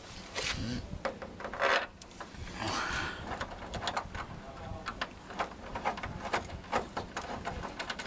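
Hex-bit screwdriver turning a long Allen-head bolt into the mounting of a moulded ABS plastic grille: irregular small clicks and scrapes of the bit and bolt as it is wound in by hand.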